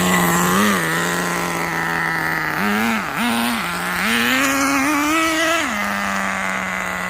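Nitro RC car's small two-stroke glow engine idling with a steady buzz, blipped up briefly a few times and then held at higher revs for nearly two seconds before dropping back to idle.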